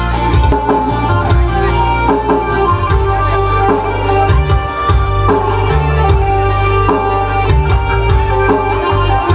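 Band music with drums and a steady bass line, an instrumental passage with no singing.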